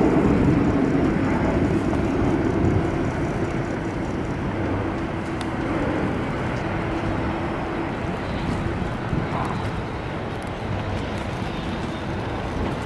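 Jet aircraft engines running on the runway: a steady roar with a faint held tone, louder for the first few seconds and then easing to a lower, even level.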